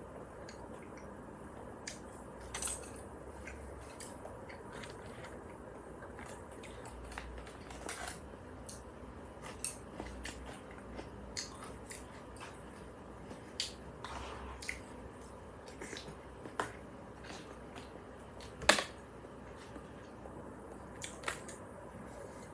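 Quiet eating sounds at a table: wooden chopsticks tapping and scraping in a bowl, with chewing in between. Many small scattered clicks, one louder click about three-quarters of the way through.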